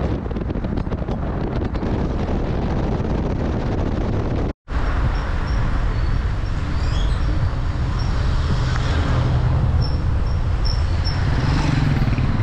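Car driving along a road: steady engine and road noise. It breaks off for an instant about a third of the way in.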